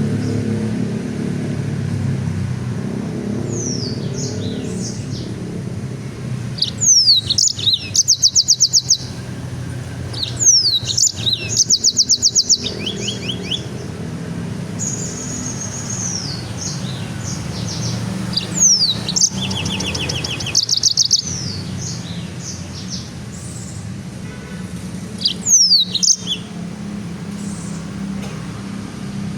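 Songbird singing in about five separate bursts of loud, high phrases: sharp downward-sweeping whistles followed by fast trills of rapidly repeated notes. A steady low hum runs underneath.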